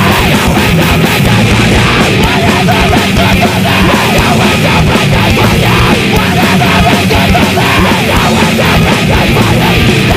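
Loud screamo/hardcore punk recording: distorted electric guitars and hard-hit drums playing densely, without a break.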